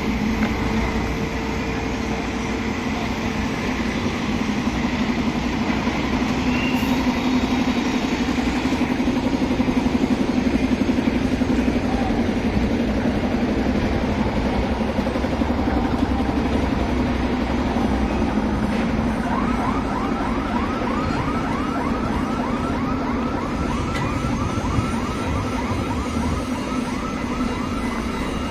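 Steady motor-vehicle and traffic noise with a low engine hum. About two-thirds of the way in, a warbling siren-like alarm starts, sweeping up in pitch several times a second.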